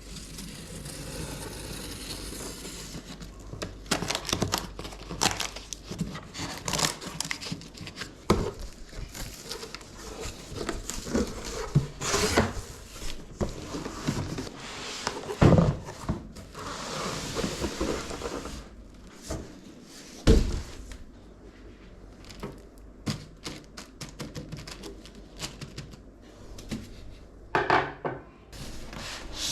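PC parts and packaging being handled: a run of small clicks, knocks and thunks with stretches of rustling, and two sharp, louder knocks, about midway and a few seconds later.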